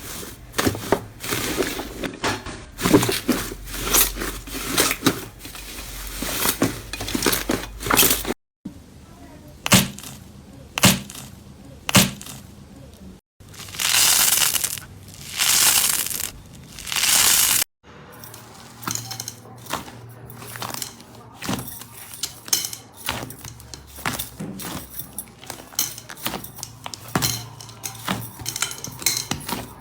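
Slime being pressed, poked and stretched by hand, making dense crackling and popping clicks with a few longer squelching swishes. The sound breaks off abruptly three times between short clips.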